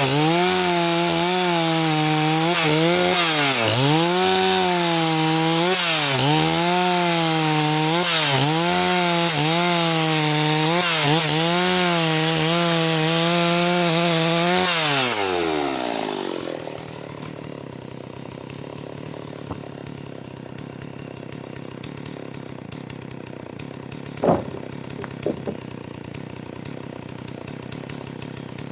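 Stihl 038 two-stroke chainsaw running at high revs, its pitch dipping and recovering about once a second. About fifteen seconds in, the throttle is released and the pitch falls away to a much quieter low idle. There is a sharp knock near the end.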